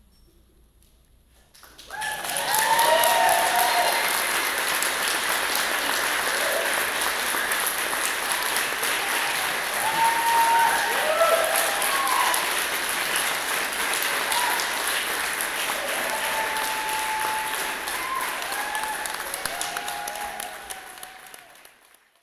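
Audience applauding and cheering. It breaks out suddenly after a brief hush, with whoops and shouts over steady clapping, and fades away near the end.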